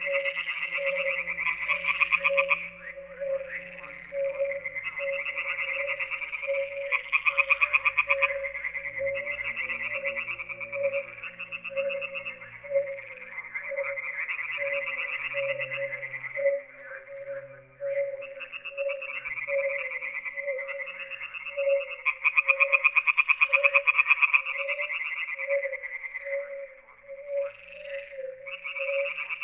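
A chorus of many frogs calling: dense, rapid rattling calls swell and fade in several surges, over a soft low note repeated steadily a little faster than once a second.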